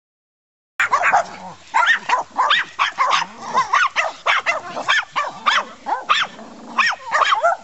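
Small dog barking and yipping in a rapid, high-pitched string of about three barks a second, starting suddenly about a second in.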